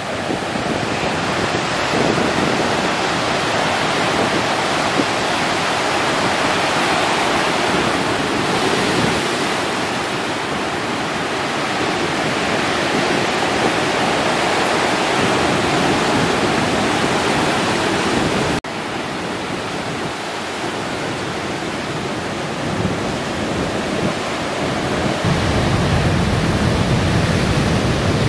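Big surf breaking and washing over the shallows: a steady, loud roar of whitewater. It cuts off abruptly about two-thirds of the way through and resumes, and a deeper low rumble comes up in the last few seconds.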